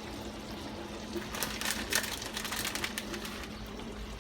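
Shredded cheese being sprinkled by hand over a casserole: a scatter of light, irregular ticks and rustles, thickest in the middle, over a faint steady hum.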